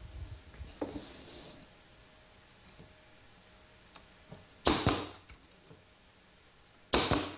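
Pneumatic brad nailer firing twice, about two seconds apart: each shot a sharp bang with a quick hiss of air as a brad is driven into the mahogany face frame. Light handling noise near the start.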